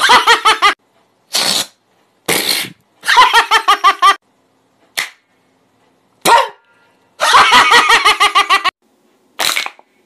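A man's voice making loud, exaggerated vocal imitation noises: short separate bursts, several of them broken into rapid stuttering pulses, with silent gaps in between.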